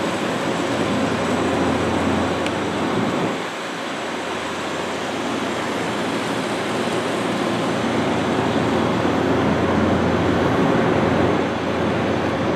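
Steady rushing noise on an airfield apron, swelling and easing, with a brief dip about three and a half seconds in.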